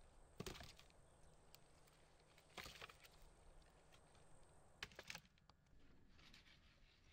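Split firewood logs set down onto a woodpile, giving a few faint wooden knocks a couple of seconds apart. Near the end the sound drops to quiet room tone.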